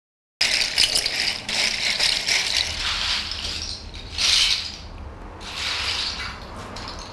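Dense clattering rattle of many small hard pieces, made of rapid clicks that come in surges; the loudest surge is about four seconds in.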